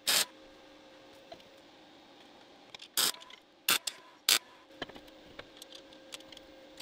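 MIG welder laying short tack welds on a steel square-tube frame: four brief spells of arc noise, one at the start and three close together between about three and four and a half seconds in. A steady hum runs underneath, with small metal clicks and taps in between.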